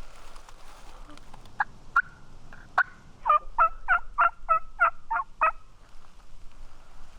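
A turkey call yelping: a few single notes, then a quick run of about eight loud yelps, used to strike a gobbler.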